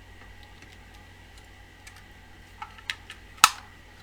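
Small plastic clicks from handling a network cable tone tester probe as its 9-volt battery is fitted: a few light clicks, a quick cluster, then one sharp louder snap about three and a half seconds in.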